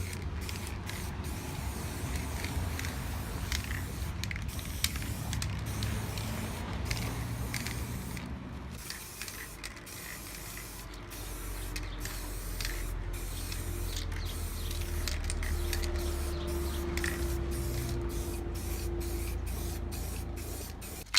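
Primer being sprayed onto brake drums, a steady hiss cut into many short bursts by brief pauses.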